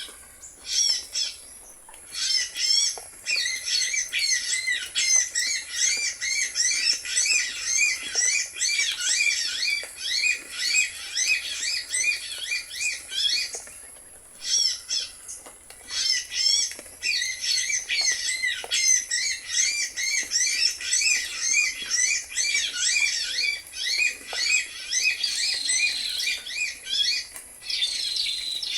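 Birds calling in rapid, near-continuous high chirps and trills, with short breaks about two seconds in and again about fourteen seconds in.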